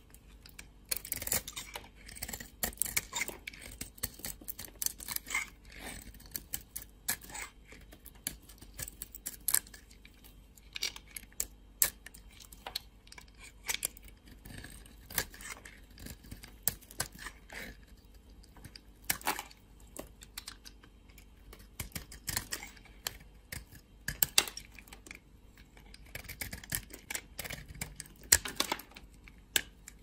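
Dry bar soap being cut with a flat razor blade and broken by hand: irregular crisp cracks and crunches as brittle flakes and chunks split off, sometimes in quick clusters.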